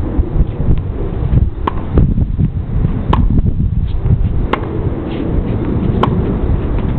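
Tennis ball struck back and forth by rackets in a rally, a sharp pop about every second and a half, over heavy wind rumble on the microphone.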